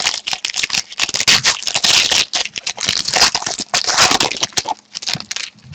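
Wrapper of a hockey trading card pack being torn open and crinkled by hand: a dense run of crackling and scraping that dies away near the end.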